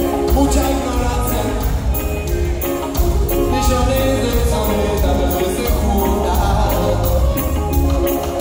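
Live reggae band playing at full volume: electric guitars, bass, drums and horns in a steady beat with cymbal strikes, with vocals.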